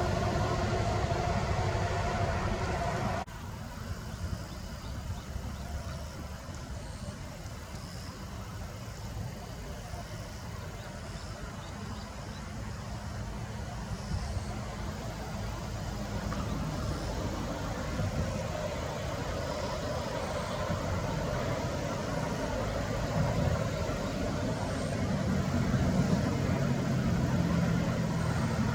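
Steady road-traffic noise from a busy arterial road, a continuous low rumble of cars and trucks. A louder, engine-like drone stops abruptly about three seconds in, and the rumble swells a little near the end.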